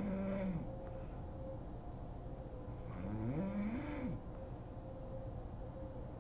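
Woman snoring in her sleep: two pitched snores, the first ending about half a second in and the second about three seconds in lasting about a second, each rising in pitch.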